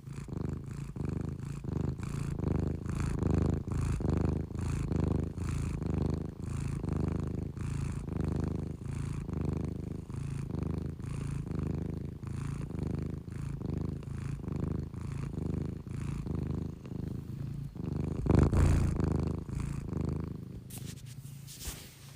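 A sleeping cat's low rumbling snore-purr, pulsing with each breath at about three breaths every two seconds, with one louder swell about eighteen seconds in.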